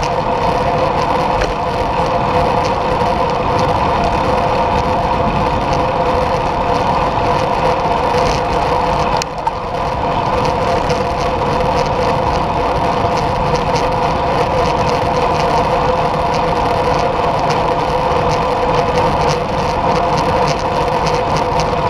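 Steady wind buffeting on the microphone and road rumble from riding along a paved road, with a constant mid-pitched hum running through it. It drops out briefly about nine seconds in.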